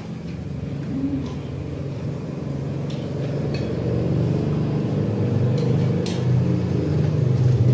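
A motor engine running steadily and growing louder, with a few light clinks of spoons on plates.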